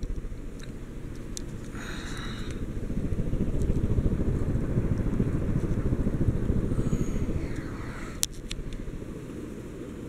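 1995 Hunter Pavilion 52-inch ceiling fan running, its spinning blades making a steady low whoosh with a rapid pulsing as they beat the air. A single sharp click sounds about eight seconds in.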